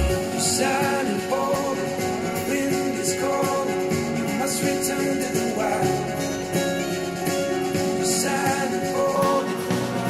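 A song with guitar and singing played through a pair of Adam Audio studio monitor speakers and picked up by microphones in the room.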